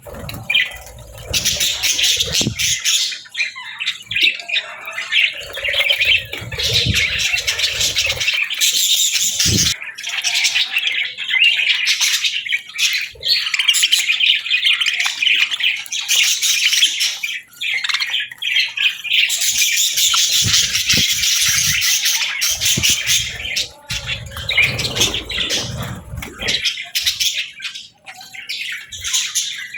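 A flock of budgerigars chattering, with continuous rapid warbling and chirping and the odd squawk. Now and then a low rumble sounds underneath.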